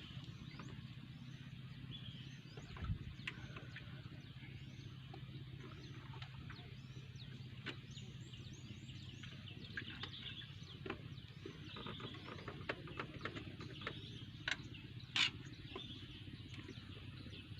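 Faint outdoor ambience: small birds chirping repeatedly over a steady low hum, with scattered clicks, the sharpest about fifteen seconds in.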